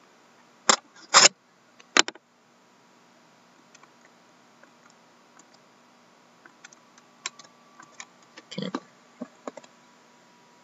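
Handling noise at a desk. There are three loud, sharp clicks within the first two seconds, then a run of lighter taps and knocks over the last few seconds as the cardboard box of trading cards is picked up.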